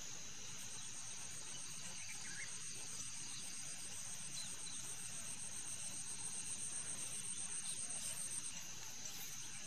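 A steady, high-pitched chorus of trilling insects, one fast pulsing trill dropping out for a moment near the end.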